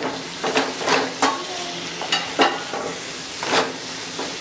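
Wooden spatula stirring and scraping thick beef pepper masala around a pan, in about seven irregular strokes, over a steady low sizzle from the hot pan.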